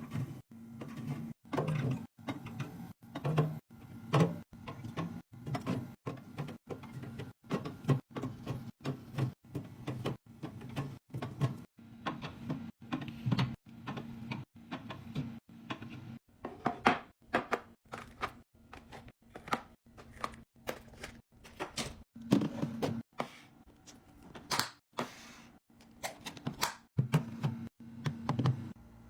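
Drinks and packaged items being set down and arranged in a mini fridge: a quick, irregular run of knocks, taps and handling noises over a low steady hum, chopped into many short clips with abrupt cuts.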